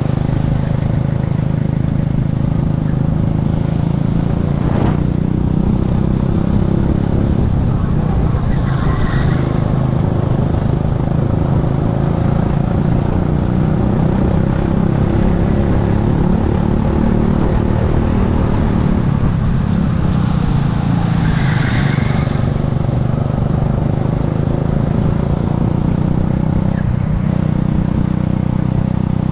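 Racing kart engine running at full race pace, heard onboard from the driver's helmet. Its pitch rises and falls with speed through the corners.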